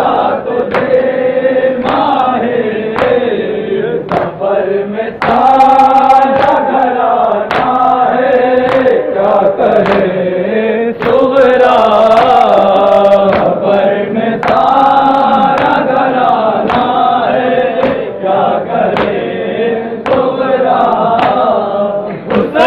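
Group of men's voices chanting a nauha, a Shia mourning lament, together. A steady beat of sharp slaps runs through it: matam, hands striking chests.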